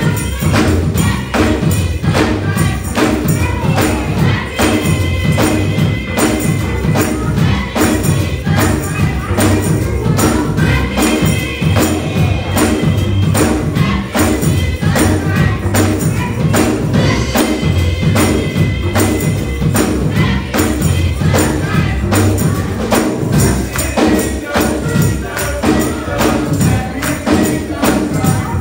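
Gospel music: a youth choir singing in phrases over a steady, driving beat and a strong bass line.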